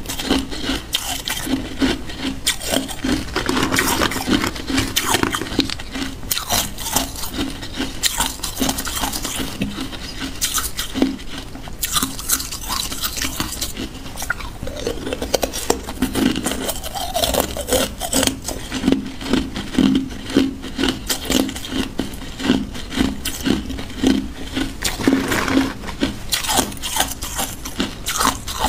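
Hard ice pieces being chewed and crunched in the mouth, close up: a steady, dense run of cracks and crackles with a regular chewing rhythm.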